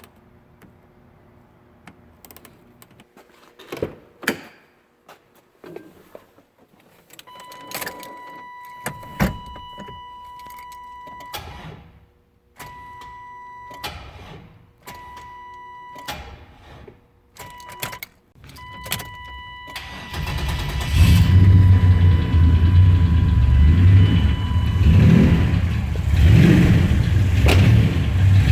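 Scattered clicks, then an electronic warning tone that sounds in several on-off stretches; about 20 seconds in, the truck's turbocharged GM 60-degree V6 starts and runs loudly.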